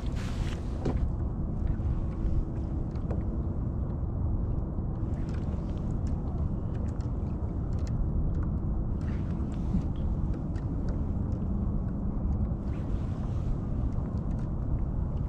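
Steady low rumble of wind on the microphone and water against a kayak's hull, with scattered faint clicks and ticks.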